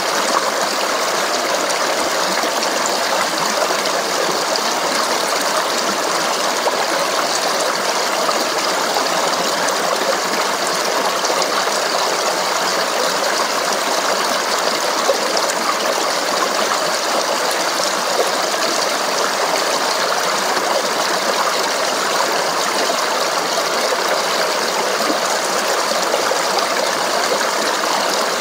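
Running stream water babbling in a steady, unbroken rush.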